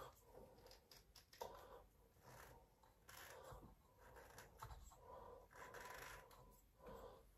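Faint, irregular scratching and rubbing of a plastic pendant lampholder being twisted tight by hand on its ceiling flex.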